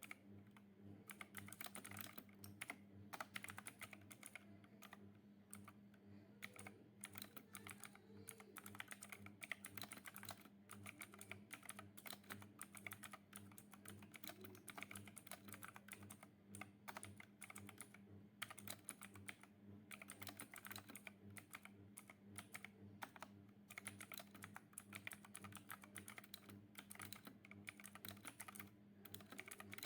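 Typing on a Zifriend T62 63-key compact mechanical keyboard: a continuous, uneven run of rapid, faint key clicks over a low steady hum.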